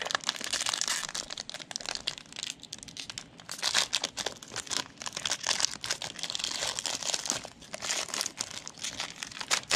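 Plastic wrappers crinkling and tearing as a Panini Mosaic cello pack and the card packs inside it are ripped open: a dense, continuous run of crackles.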